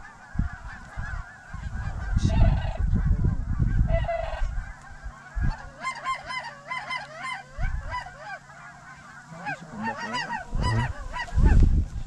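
A flock of sandhill cranes calling, many rolling calls overlapping, building up from about five seconds in. Low rumbling bursts on the microphone come around two to four seconds in and again near the end.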